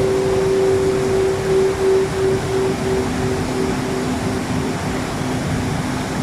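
Waterfall rushing steadily, with long ringing euphone tones laid over it: a mid tone slowly dies away with a gentle pulsing while a lower tone comes in about halfway through.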